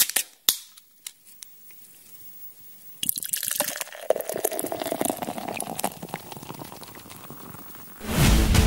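Liquid sound effect: a few sharp drips in the first second and a half, then from about three seconds in liquid pouring, tapering off. Electronic music starts near the end.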